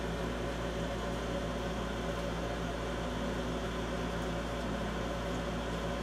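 Draft inducer motor of a 1997 Bryant Plus 90 gas furnace running steadily with a low hum during the startup pre-purge, before the burner has lit.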